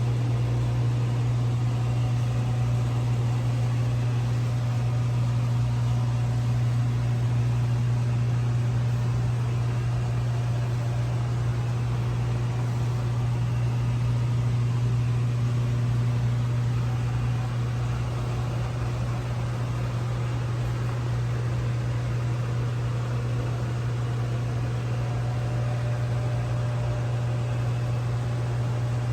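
A steady low mechanical hum over a faint even hiss, unchanging throughout.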